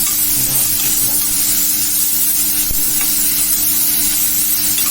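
Onions, green chillies, coconut and ginger-garlic paste sizzling as they fry in hot oil in a pan, a steady hiss, with one light tap about halfway through. This is the masala being sautéed in oil before it is ground.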